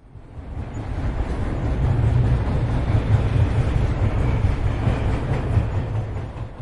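A steady low rumble with a noisy rattle on top, fading in over the first second or so and cutting off abruptly at the end.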